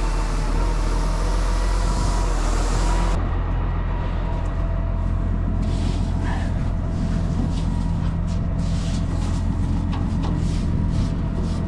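Tractor engine running steadily under a continuous low drone. The sound changes abruptly about three seconds in, and scattered knocks and rattles follow in the second half.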